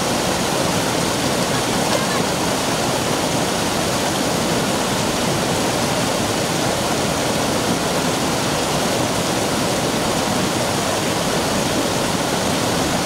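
Shallow mountain stream rushing steadily down a sloping rock slab in a small white-water cascade.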